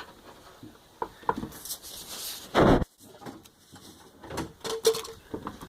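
Workshop handling noises: knocks, clicks and a scrape as parts and tools are moved about, with one short, loud burst a little after halfway.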